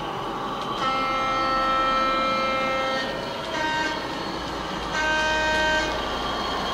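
Class 22 diesel locomotive sound file on a DCC sound decoder, played through the model's small speaker: the horn sounds a long blast about a second in, then two shorter blasts, over the continuous diesel engine sound.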